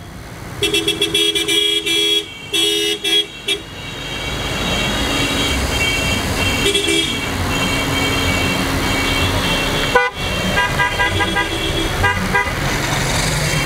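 Car horns honking in a slow-moving vehicle caravan: short repeated toots in the first few seconds and again near the end, over the engine and tyre noise of cars and a motorcycle driving past.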